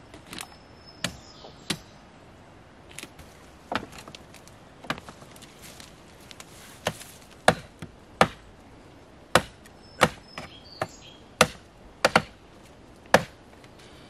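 A blade chopping dry wooden branches in a series of sharp separate strikes, a few scattered at first, then coming about once a second for the second half.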